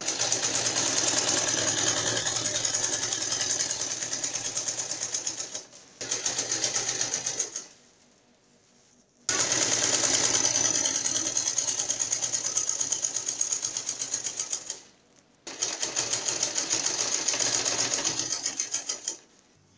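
Sewing machine stitching a seam through layers of petticoat net, running fast in four bursts. A long run and a short one come first, then a pause of a second or two about halfway, then two more long runs with a brief stop between them.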